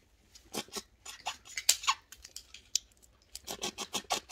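Red snow crab shells being cracked and pulled apart at the table: an irregular run of sharp clicks and cracks.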